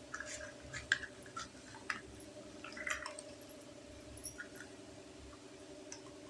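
Small plastic toy kitchen pieces being handled, giving scattered light clicks and taps, most in the first three seconds and a couple more later, over a steady low hum.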